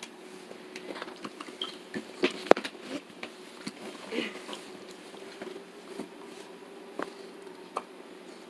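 Light scattered clicks and taps of a puppy nosing at a bug on a vinyl tile floor, over a faint steady hum.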